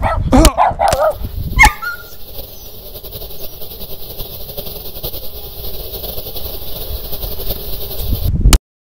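A few short whining, yelping calls in the first two seconds, then a steady rustling hiss that cuts off suddenly near the end.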